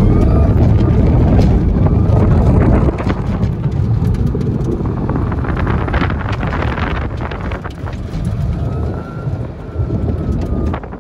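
2010 Tesla Roadster's electric motor whining under heavy wind and road noise during a hard autocross run. The car is loudest for the first few seconds, then eases off, and a faint whine rises and falls in pitch near the end.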